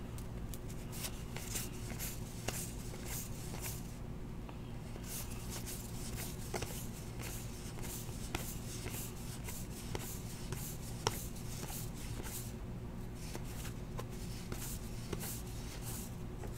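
Baseball trading cards being handled and flipped through, faint rustles and soft ticks with one sharper click about eleven seconds in, over a low steady hum.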